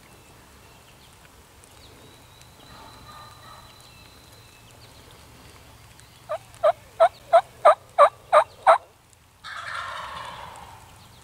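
A run of eight loud turkey yelps, evenly spaced at about three a second, each note dropping in pitch. Right after them, about two-thirds of the way through, a wild turkey gobbler gobbles in answer.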